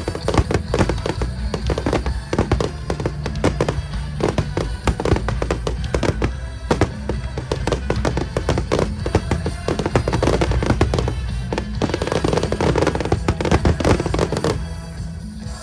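A dense barrage of fireworks going off, rapid bangs and crackles over a deep rumble, with music playing underneath; the barrage dies away near the end.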